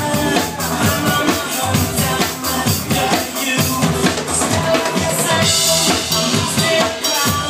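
Drum kit played live over a DJ's electronic dance track, a steady driving beat under sustained synth tones, loud and continuous.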